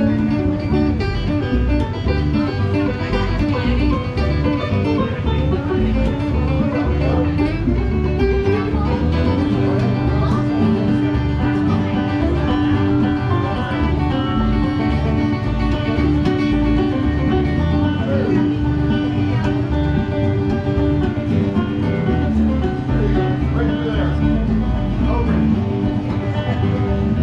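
Live acoustic band music with plucked strings in a bluegrass style, playing steadily.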